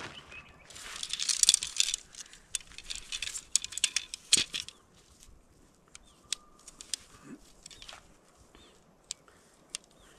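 Tent fabric rustling and swishing, then sharp clicks and rattles of tent pole sections being fitted together, densest in the first half and sparser toward the end.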